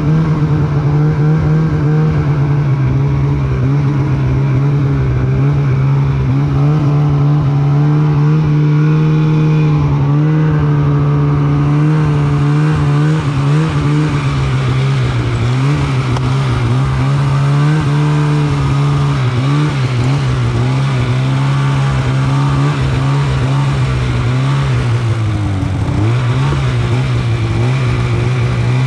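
Polaris Pro RMK 800 snowmobile's two-stroke twin engine running under throttle, its pitch rising and falling as the rider works the throttle. Near the end the revs drop briefly, then climb again.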